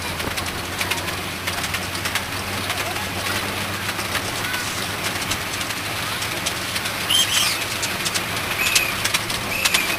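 Miniature railway train running: the steady rumble and frequent clicking of the open carriages' wheels on the track, with a low hum from the locomotive's engine.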